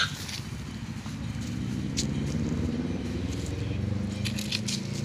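A low engine hum that grows about a second and a half in and runs on, with a few short, sharp high sounds over it, about two seconds in and again near the end.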